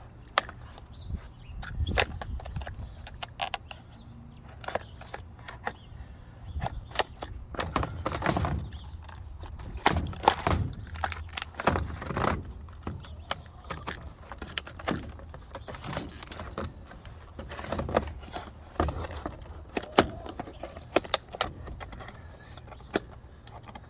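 Irregular clicks, clinks and knocks of small metal parts and packaging being handled, over a steady low hum.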